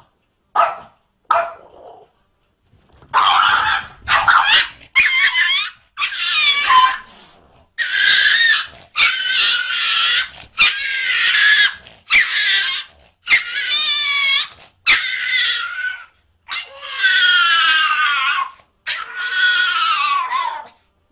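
A dog yowling and whining in a series of about a dozen high-pitched calls, each a second or so long, the pitch wavering and bending within each call.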